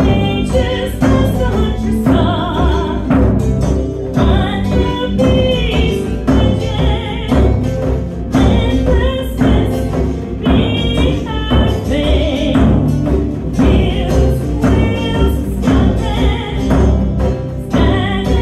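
Live Celtic folk song: a woman singing a melody with vibrato, accompanied by acoustic guitar and a steady drum beat.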